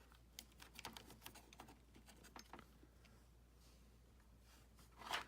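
Faint, irregular small clicks and light rustling of a USB cable being handled and threaded through a Duckiebot's plastic chassis, thinning out after about three seconds, with one short, louder rustle near the end.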